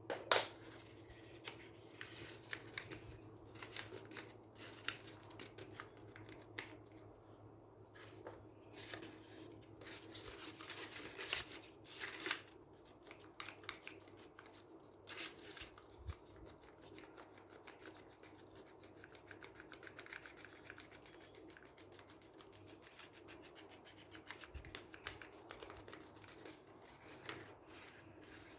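Folded paper puppets rustling and crinkling as hands open, close and move them, with scattered sharp paper clicks and crackles, busiest in the middle and sparser later. A faint steady hum runs underneath.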